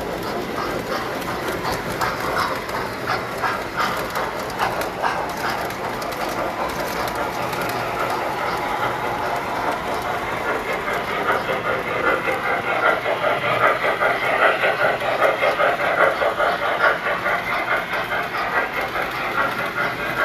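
Tinplate model trains running on metal track: a steady, rattling clatter of wheels and motors that grows louder about two-thirds of the way through.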